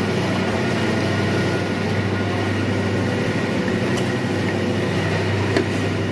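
Steady low hum with an even rushing noise, like a kitchen fan or burner running, and two light clicks about four and five and a half seconds in as pieces of spiced braised meat are laid into the pot.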